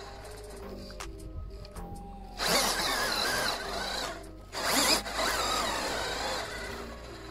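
Hobbywing Fusion brushless motor and drivetrain of a 1/6 RC crawler whining under throttle as it climbs rock, in two bursts: one about two and a half seconds in, and a second just before five seconds. Background music plays throughout.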